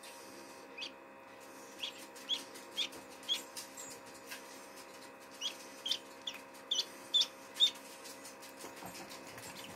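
Newly hatched, still-wet duckling peeping: about a dozen short high peeps in two quick runs, over the steady hum of the egg incubator.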